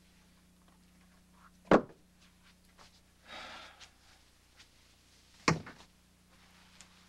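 Two sharp thuds, about four seconds apart, with a short rustle between them, over a low steady hum.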